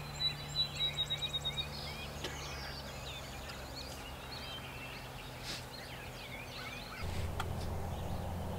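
Songbirds singing, with one bird's run of high whistled notes speeding up over the first second and a half, and scattered chirps after. A steady low rumble of outdoor background noise runs underneath and gets louder near the end.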